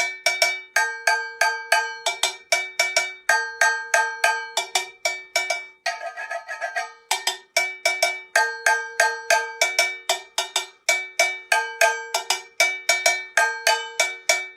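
Homemade agogô bell made from two soup cans, struck with a stick in a steady, fast rhythm that alternates between a lower and a higher ringing pitch. About six seconds in the pattern breaks briefly for a rasping, scraping sound before the strokes resume.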